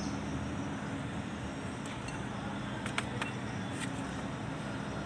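Light metal clinks, a few between about two and four seconds in, from steel propeller-shaft parts (a sleeve and a splined shaft) being handled and set down, over a steady low mechanical hum.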